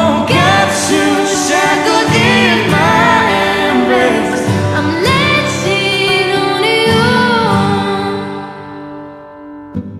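Acoustic pop cover song with a voice singing drawn-out, gliding notes over the accompaniment, fading out over the last couple of seconds.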